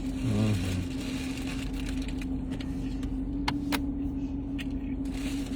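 Steady hum of a running car, one constant low tone, with a brief falling vocal sound just after the start and two sharp clicks about three and a half seconds in.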